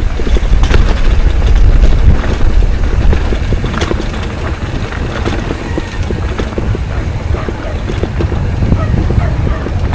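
Mountain bike rolling fast over a rough dirt trail: wind buffets the microphone with a heavy rumble, and the bike rattles and clicks over the bumps. The rumble is loudest in the first few seconds and eases after that.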